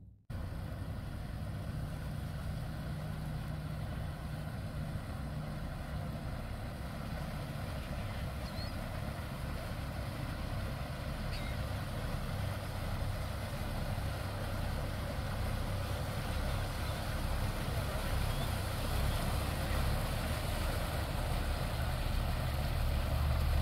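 Engine of a cabin sport-fishing boat cruising at low speed, a steady low hum that grows louder toward the end as the boat draws closer.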